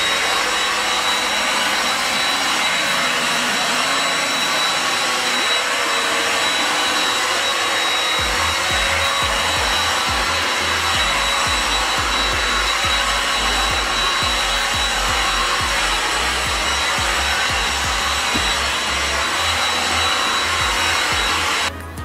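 Mondial Cyclo 2-in-1 stick vacuum, used as a handheld with its small brush nozzle, running steadily over an upholstered headboard: a rush of suction with a constant high motor whine. It switches off shortly before the end.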